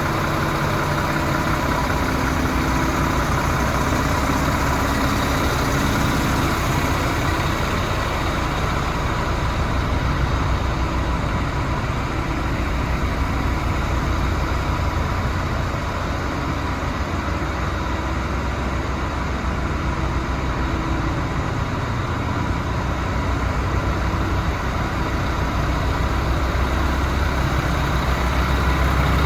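DAF CF75 truck's six-cylinder diesel engine idling steadily, with a faint steady whine over the low chug.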